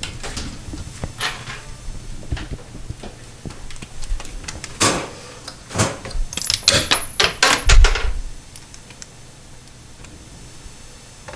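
Scattered clicks and metallic knocks from handling an aluminum medicine cabinet, its hinged door and its mounting screws. A quick run of clicks comes about two thirds of the way through and ends in a low thump, the loudest moment.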